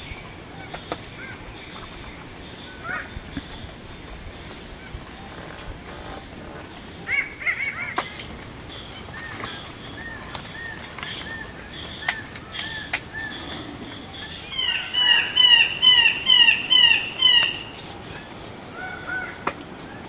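Displaying male red birds-of-paradise calling: scattered softer notes, then, about three-quarters of the way in, a fast series of about eight loud, ringing call notes. A steady high insect drone runs underneath.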